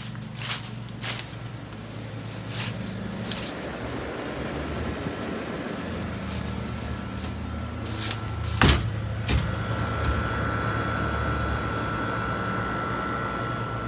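Window air conditioner's compressor and fan running with a steady low hum, heard from outside behind the unit. A few sharp clicks come in the first seconds and two loud knocks about nine seconds in, after which a steady high whine joins the hum.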